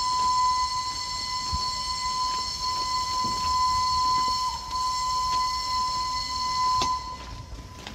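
A field-railway locomotive's horn holding one long, steady high note, which stops about seven seconds in.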